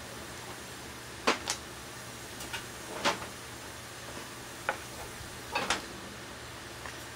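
A handful of short, sharp clicks and clinks of metal being handled at the vise during silver brazing, over a steady low hiss; the loudest come about a second in and around three seconds in.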